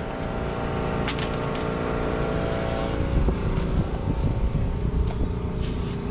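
Gas-station air compressor running with a steady hum of several tones while its hose chuck is held on a dirt bike's rear tire valve, inflating the tire; the hum fades about three seconds in, with a short click about a second in.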